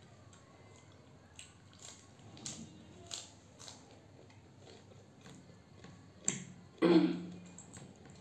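Close-up crunching and chewing of a raw mustard leaf: several short crisp crunches in the first few seconds, then softer chewing. A little past six seconds there is a sharp click, followed by a louder burst with a short low hum.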